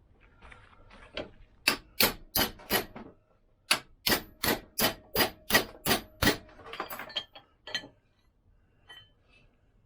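Hammer tapping a bearing race down into a Lambretta gearbox end plate to seat it flat: sharp metallic taps, about three a second, four in a row, then a pause, then a run of about eight, with a few lighter knocks after.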